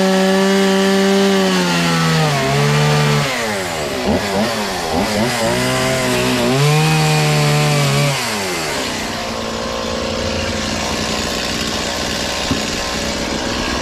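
Stihl MS 170 two-stroke chainsaw cutting into a wooden slab at high revs. Its engine speed swings up and down repeatedly as the throttle is worked through the cut, then drops to a steady idle about two-thirds of the way through.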